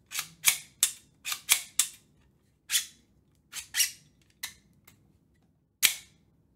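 Trigger and hammer mechanism of an Auto 9 replica pistol kit being worked over and over, giving about a dozen sharp snapping clicks at uneven spacing, some in quick pairs. This is a check that the trigger-to-hammer linkage slides freely.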